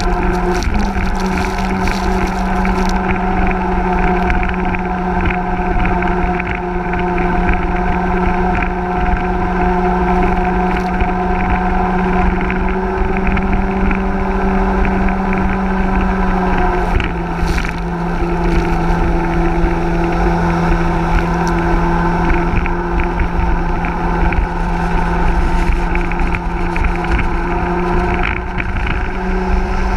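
Hison 1400 cc mini jet boat's engine running at speed, a steady drone with water and wind rushing past. About halfway through, the engine note steps down slightly and then holds.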